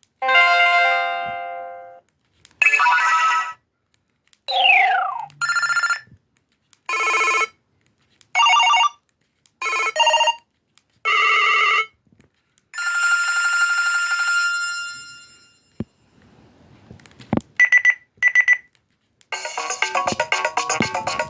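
A run of short BlackBerry Curve 8520 ringtones, each a second or so long, with silence between them; one glides down in pitch and a few are quick beeps. Near the end a longer rhythmic ringtone melody starts.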